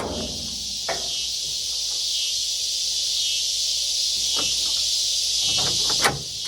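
A steady, high-pitched chorus of insects, with a few short light clicks about a second in, midway and near the end.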